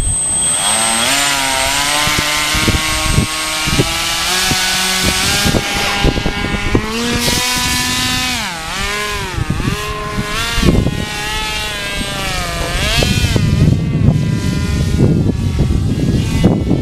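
Paramotor engine and propeller running hard, the engine note rising and falling again and again as the throttle is worked.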